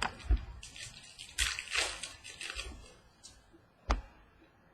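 Trading cards and pack wrappers being handled: a few rustling, sliding swishes and a couple of short knocks on the table.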